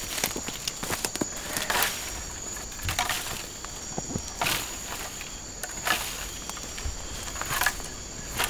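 Slow, irregular footsteps rustling through dry undergrowth, one every second or two, over a steady high chirring of insects.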